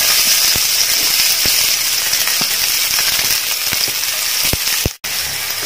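Chopped onions sizzling in hot oil in a frying pan, with scattered pops from spluttering mustard and fennel seeds. The sizzle cuts out for an instant near the end.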